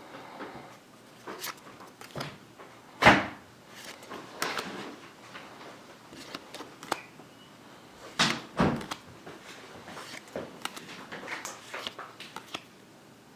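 Handling noises: irregular knocks and clatters with rustling in between. The loudest knock is about three seconds in, and two more come close together a little past eight seconds.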